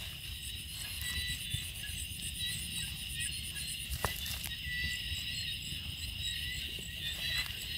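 Steady chorus of night insects: a continuous high trill with a rapid, evenly spaced ticking above it. Under it, low rustling and a few soft clicks, as from walking through grass.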